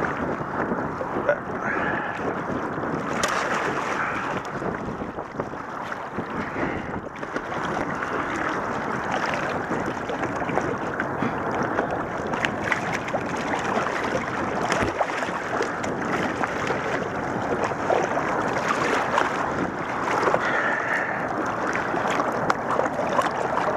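Steady wind noise on the camera microphone over choppy water, with scattered small splashes as a hooked sturgeon thrashes at the surface beside the boat.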